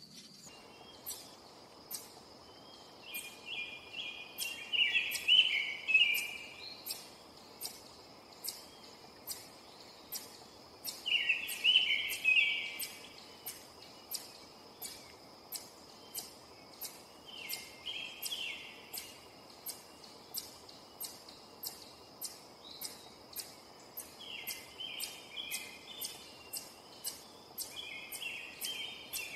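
Eastern chipmunk giving its repeated sharp 'chip' call, about three chips every two seconds without a break. A songbird sings short warbled phrases every few seconds, louder than the chips, over a faint steady high insect hum.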